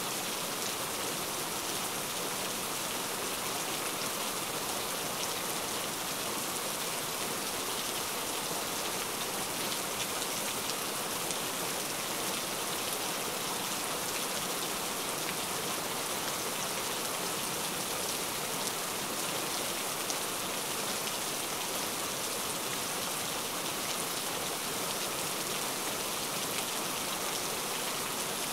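Heavy rain falling steadily, a dense hiss of countless drops striking surfaces, with fine drop ticks and no let-up.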